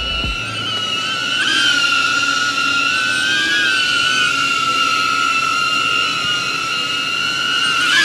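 DJI Avata cinewhoop drone's ducted propellers whining in flight: a steady high two-tone whine that wavers slightly in pitch, a little louder from about a second and a half in.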